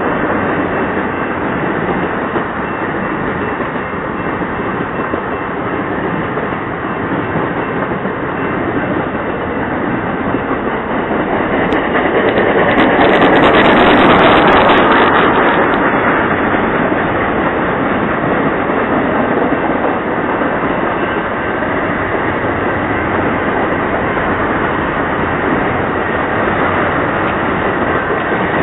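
Freight train cars rolling past close by: a steady wheel-on-rail running noise that grows louder about halfway through, then settles back.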